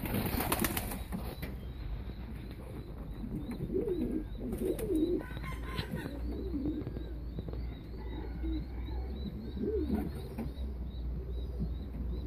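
Domestic pouter pigeons cooing, low wavering coos coming every few seconds. A short burst of wing flapping sounds in the first second, and a faint high chirp repeats two or three times a second through the second half.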